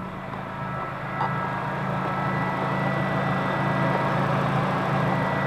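Swapped-in 2.0-litre DOHC four-cylinder engine (Kia Sportage FE3) in a 1991 Mazda B2200 mini-truck, running with a steady hum and growing gradually louder over the first few seconds, with a sound a whole lot like a Honda.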